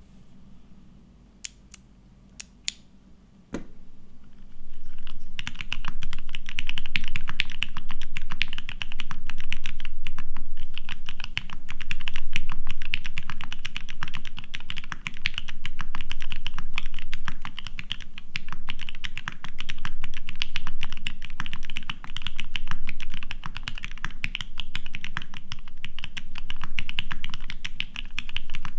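Typing on a TX1800 custom mechanical keyboard with lubed Mauve switches, a polycarbonate plate and Cherry doubleshot keycaps. A few separate keystroke clicks and one knock come first, then fast continuous typing starts about five seconds in.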